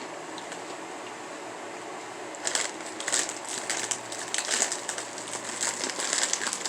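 A Bugles Ranch snack bag crinkling and crackling in the hands, starting about two and a half seconds in and going on in irregular bursts.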